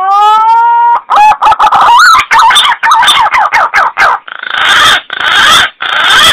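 Green pigeon (punai) call used as a lure for calling the birds in: a rising whistled note, then a fast run of short warbling notes, ending in three harsh rasping bursts.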